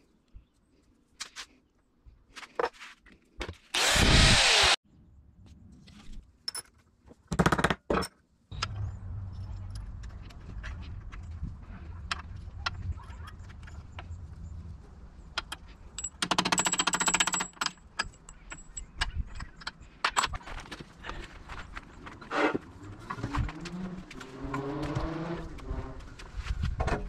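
Metal hardware being handled: washers, spacers and aluminium tubing clicking and clinking, with a few short loud bursts of noise from a tool, over a steady low outdoor hum.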